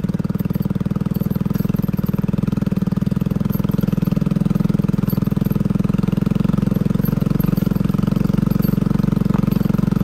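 Motorcycle engine running steadily with a fast, even throb.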